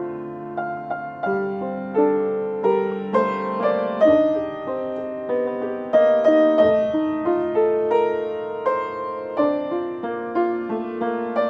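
Grand piano played solo: a flowing piece of chords under a moving melody, each note struck and left to ring and fade.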